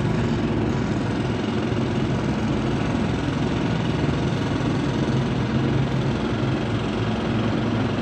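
Steady engine drone of heavy construction machinery running, a loud continuous rumble with no separate bangs.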